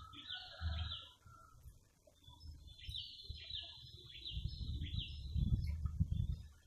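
A bird singing a run of short, high, falling whistled notes, once at the start and again from about three seconds in. Bursts of low rumbling noise come and go underneath.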